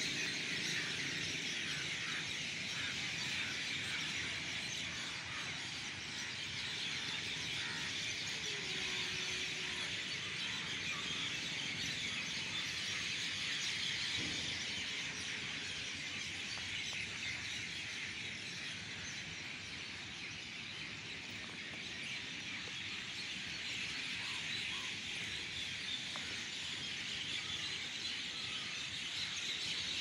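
A large flock of birds calling at once, a dense and steady din of chirps and squeals.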